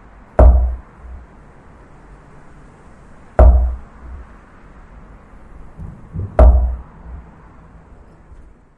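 Three heavy knocks, evenly spaced about three seconds apart, each with a deep thud and a short ringing tail, over a steady low rumble.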